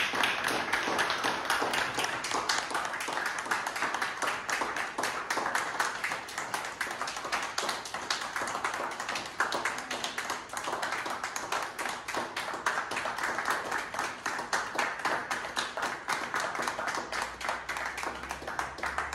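A small audience applauding: a dense, steady patter of many hands clapping that thins out and grows quieter near the end.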